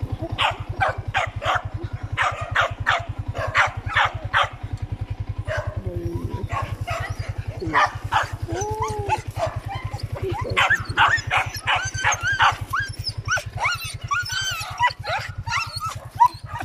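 Dogs barking in short, rapid barks, then giving high yips and whines that rise and fall in pitch, over a motorcycle engine idling with a steady low pulse.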